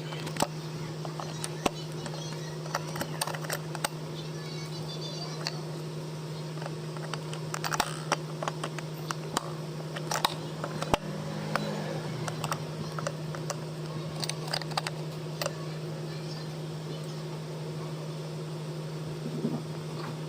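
Light, irregular clicks and taps of handling guitar parts and tools, over a steady low hum.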